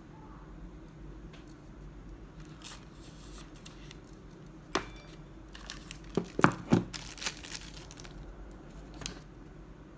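Handling noise from a smartphone in the hand: a few sharp clicks and taps, most of them bunched together past the middle, with light rustling.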